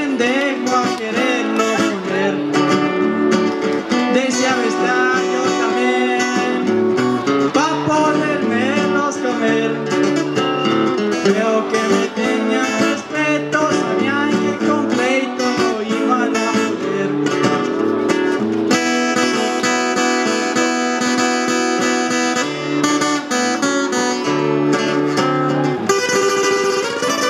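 Two acoustic guitars playing together: a picked lead melody with bent, sliding notes over strummed chords. The playing turns fuller and brighter about two-thirds of the way through.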